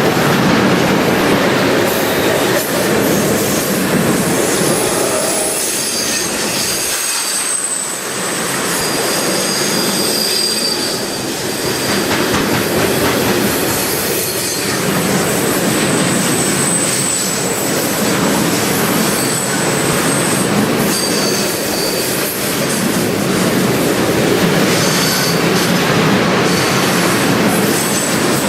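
Train rolling past on the rails: steady wheel-on-rail noise with the clack of wheels over rail joints, and high-pitched wheel squeal that comes and goes.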